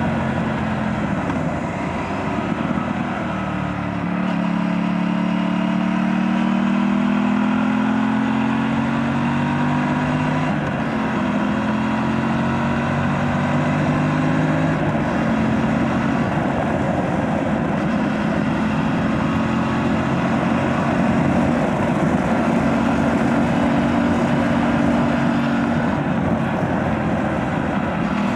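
Aprilia RS 457's parallel-twin engine through its stock exhaust, ridden hard through corners, its note rising and falling with the throttle. The pitch falls away about two to four seconds in and steps sharply several times.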